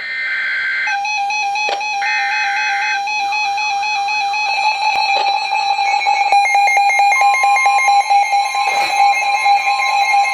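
Emergency Alert System tornado warning audio: two short bursts of warbling data tone in the first three seconds, then steady electronic alert tones with a music-like layer. A second tone joins about seven seconds in, and a fast run of ticks sounds in the middle.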